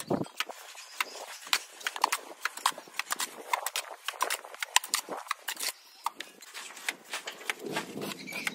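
Cement mortar being scooped from a pan and thrown by hand onto a block wall for plastering: an irregular run of sharp clicks, scrapes and slaps, several a second, with a low thud at the start.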